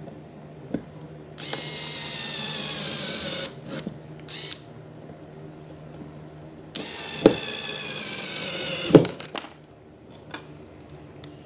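JB801 corded 12-volt electric screwdriver driving screws in, in two runs of a few seconds each. Each run is a high motor whine that slowly drops in pitch. A couple of sharp clicks sound during the second run and at its end.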